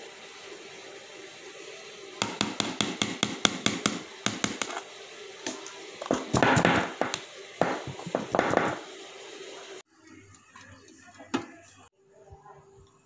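A spoon tapping and scraping against a metal cake tin while spreading a layer of batter: a quick run of sharp clicks, then louder scraping and clatter. The sound cuts off suddenly about ten seconds in.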